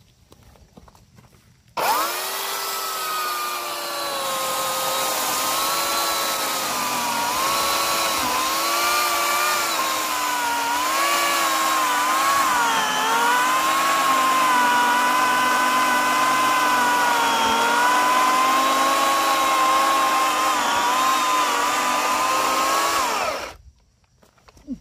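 Makita corded electric chainsaw cutting through a log: the motor starts abruptly about two seconds in with a steady high whine whose pitch dips and wavers as the chain bites into the wood, then winds down and stops shortly before the end.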